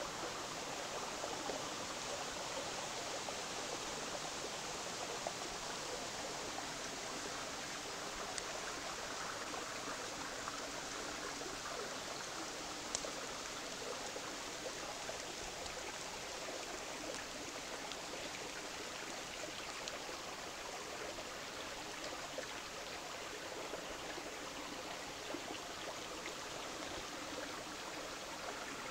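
Steady rush of running water from a forest stream, with a few faint clicks here and there.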